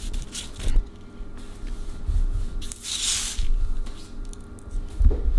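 Hands rustling and scraping on a sheet of paper spread with crushed cereal, with light clicks, a louder rustle about three seconds in and a few soft low knocks on the table.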